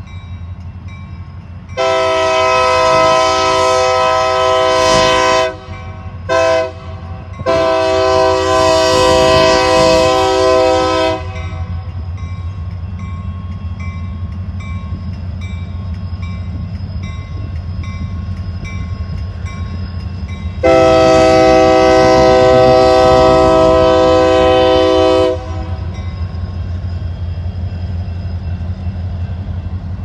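Horn of a Union Pacific SD70M diesel locomotive sounding for a grade crossing: a long blast, a short one, another long one, then after a pause a final long blast. A steady low rumble of the passing locomotives runs under it throughout.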